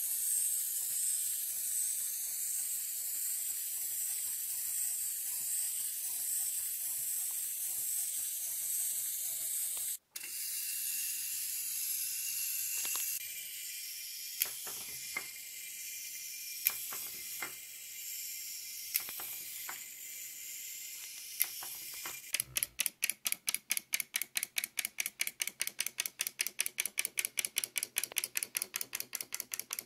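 Clockwork wind-up toys running on a tabletop. First comes a steady high whirr of the spring motor, then scattered clicks, and then, for the last several seconds, a fast, even clicking at about six a second as a toy steps along.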